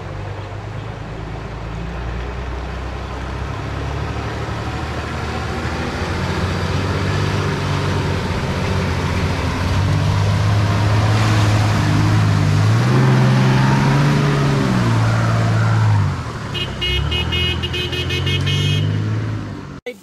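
Four-wheel-drive vehicle's engine growing steadily louder as it approaches, its pitch rising and falling as the revs change, then easing off sharply about sixteen seconds in.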